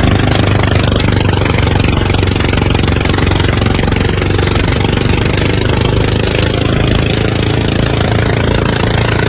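Boat engine running steadily under a continuous broad hiss of wind and water.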